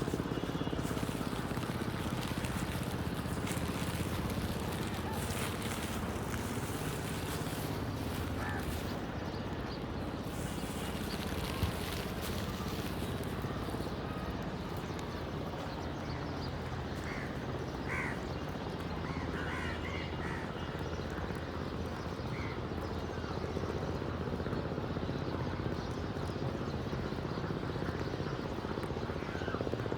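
A steady low rumble with a few short crow caws high above it, grouped about two-thirds of the way through.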